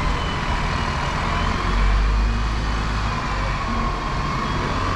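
Street traffic: a steady low engine rumble from passing road vehicles, swelling briefly about two seconds in.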